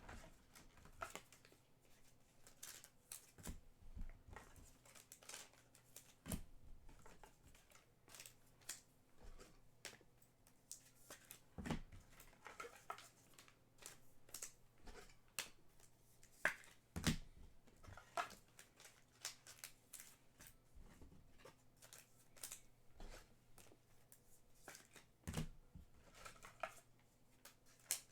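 Trading card packaging being handled and opened: scattered light clicks, rustles and bits of tearing from boxes and foil packs, over a faint steady hum.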